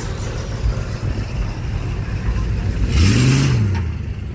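Vehicle engines running as traffic rolls slowly past. About three seconds in, one engine revs once, its pitch rising and falling back within a second.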